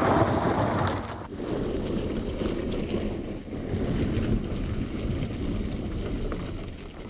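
Toyota Prius rolling slowly over loose gravel, its tyres giving a steady crunching noise, with some wind buffeting the microphone.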